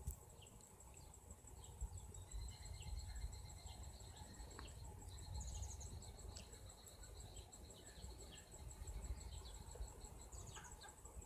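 Faint ambience: a steady, high-pitched insect trill, with short high chirps scattered through it and a low rumble underneath.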